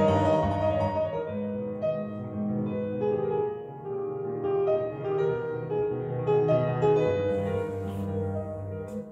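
Piano music played back through a hi-fi system with an MSB Select II DAC, heard in the room.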